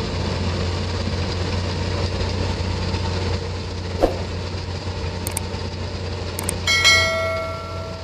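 A low steady rumbling hum with a faint hiss, a short click about four seconds in, and near the end a bell-like chime that rings out for about a second.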